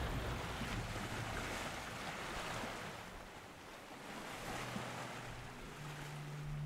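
Steady hiss of wind and sea waves. A low steady tone comes in near the end.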